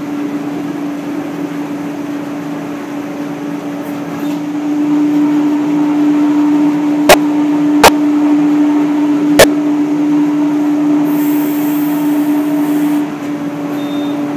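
Fiber opening and pillow filling machine running with a steady hum, louder from about a third of the way in and easing off near the end. Three sharp clicks come a little past the middle.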